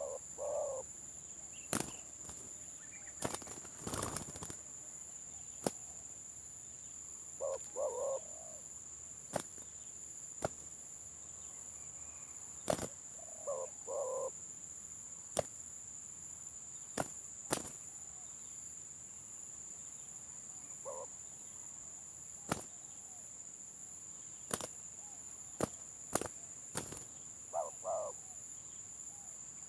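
Spotted dove cooing in short broken phrases of two or three notes, five times, about every seven seconds: the stuttering 'gagap' style of coo. Sharp clicks or taps come often between the phrases, over a steady high-pitched tone.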